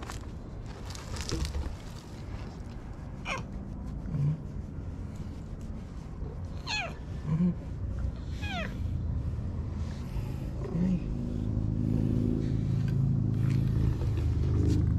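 A cat meowing three times, short calls that fall steeply in pitch. In the last few seconds a low steady drone, like a passing motor, grows louder.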